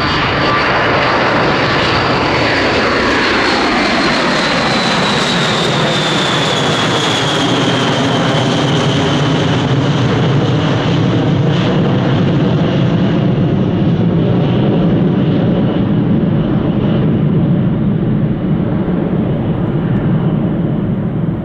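Boeing B-52 Stratofortress's eight Pratt & Whitney TF33 turbofans at takeoff power as the bomber climbs out past and away. The high whine and engine tones fall in pitch over the first several seconds as it passes, then a steady deep rumble carries on as it recedes.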